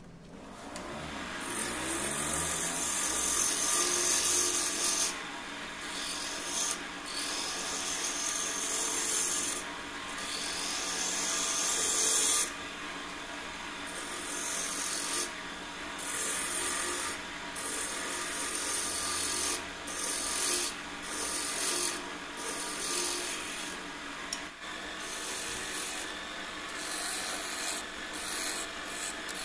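Wood lathe spinning a mastic-wood goblet blank while a turning tool cuts the outside: a rough scraping hiss that breaks off briefly every second or two as the tool is lifted and put back, over the lathe's faint steady hum.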